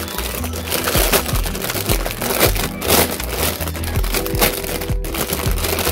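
Thin clear plastic bag crinkling as hands pull a PVC figurine out of it, over background music with a steady beat.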